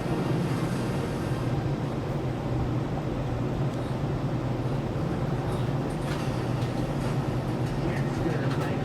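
Steady low hum of running machinery, with a few faint light clicks in the last few seconds.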